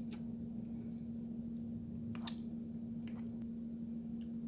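Wet mouth sounds of a person eating spaghetti: a handful of short squishy smacks and clicks while chewing, the clearest about two seconds in, over a steady low hum.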